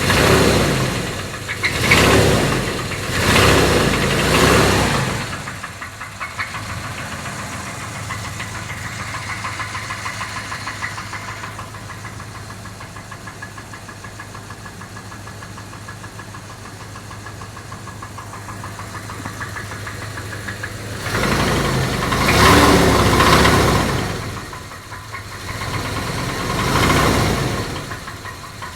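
Jeep Grand Cherokee engine running with a fast, even knock, the engine knock the owner is demonstrating. It is revved up briefly four times in the first five seconds, idles steadily, then is revved twice more near the end.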